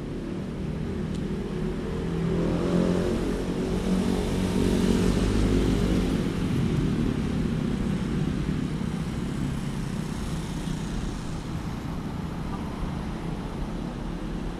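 Street traffic with a motor vehicle's engine passing close by: the engine sound swells to its loudest about five seconds in, then slowly fades back into the steady traffic noise.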